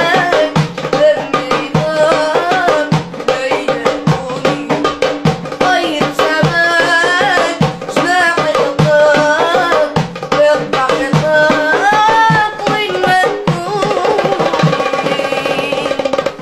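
A boy singing wavering, ornamented melodic lines, accompanied by a darbuka goblet drum and a large frame drum played by hand in a steady rhythm.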